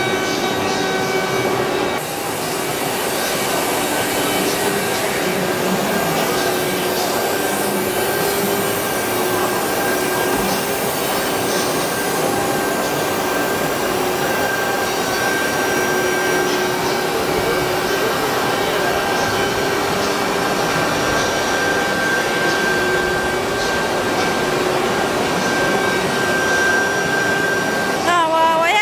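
CNC router spindle running and cutting wood: a steady high whine over continuous cutting noise.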